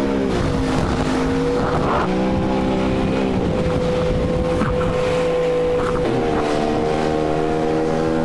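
Inflatable inshore lifeboat's outboard engine running at high speed, its note dropping and rising several times as the hull rides over the waves. Wind and rushing spray run underneath.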